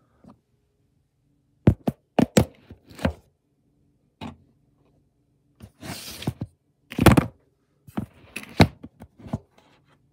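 Handling noise of a phone camera being moved and set in place: irregular knocks and thumps with short scraping rustles, in several clusters over a few seconds.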